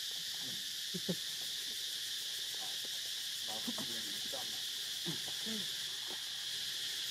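A steady, high insect drone fills the background without a break, with a few faint, short lower sounds now and then, around one, four and five seconds in.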